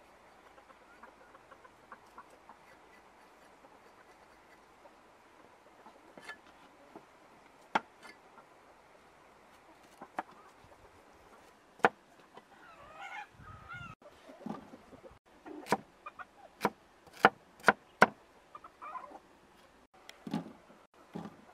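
Cleaver chopping carrots on a wooden chopping block: a few single sharp knocks at first, then a quicker run of chops past the middle. A bird calls briefly about halfway through.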